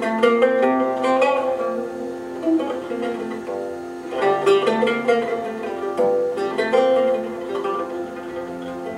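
Recorded music: an oud plucks a quick melody over long held notes from a string ensemble.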